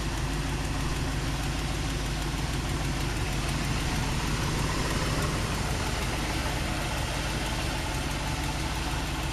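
1987 Chevy Suburban's 454 V8 idling steadily, heard from over the open engine bay; it seems to be in good running condition.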